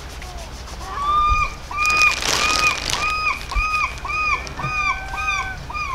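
A bird calling in a fast series of short arched notes, about two a second, starting about a second in, with a few longer level notes from another call near the end. A brief rush of noise comes about two seconds in.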